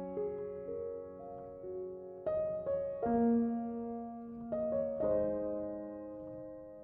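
Slow, gentle piano music: notes struck one after another, each ringing on and slowly fading under the next.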